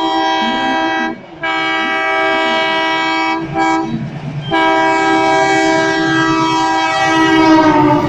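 WDM-3D diesel locomotive's horn sounding in long, loud blasts as it approaches, cut by a short break about a second in and a longer break with a couple of brief toots around the middle. Near the end the horn's pitch drops as the locomotive draws level.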